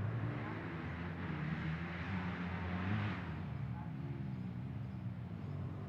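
Motorcycle engine running at a steady low idle, with a rushing swell that builds to about three seconds in and then fades away.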